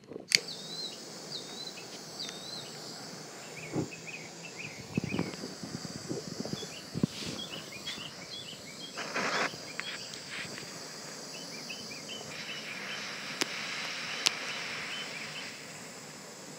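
Small birds chirping repeatedly, with a few knocks and taps in the first half. Over the last few seconds a handheld butane torch hisses steadily, with two sharp clicks.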